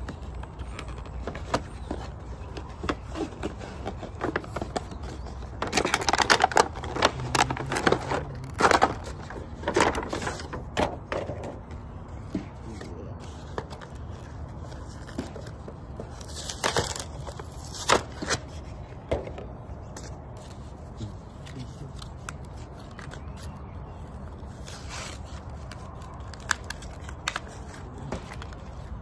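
Action-figure packaging being opened by hand: clear plastic tray and cardboard insert crinkling, scraping and tearing, with scattered clicks. The loudest stretch of crinkling and ripping comes about a fifth of the way in, with another short burst a little past the middle.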